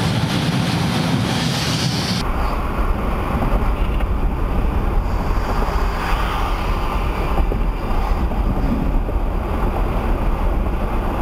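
Steady road and wind noise of a car driving, heard from inside the cabin: a low rumble with a hiss above it. About two seconds in, the hiss drops away and the low rumble grows stronger.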